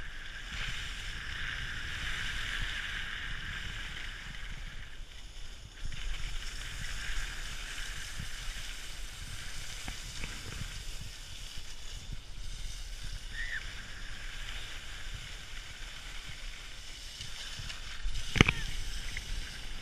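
Skis sliding and scraping over packed snow, a steady hiss with wind rumbling on the camera microphone. A single sharp knock comes near the end.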